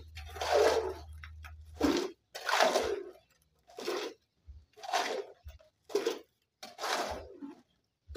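Steel shovel scraping into and turning a hand-mixed heap of gravel, sand and cement for concrete, one gritty scoop about every second.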